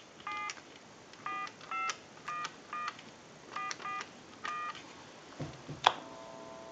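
Touch-tone dialing on a Crosley wooden wall telephone's push-button keypad: a string of short two-tone beeps in uneven groups as a number is keyed in. Near the end there are a couple of clicks, then a steady tone comes on the line.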